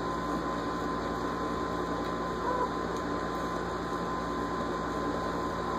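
Steady background hum and hiss, like a fan or air conditioner running, with a faint constant high tone through it.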